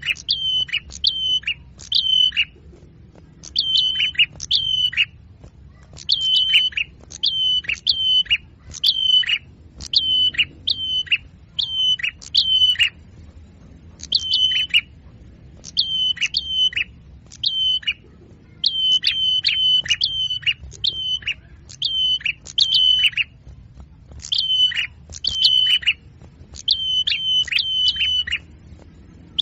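A small songbird's high chirps, each sweeping down to a short steady note, repeated in quick runs of two to four with brief pauses between.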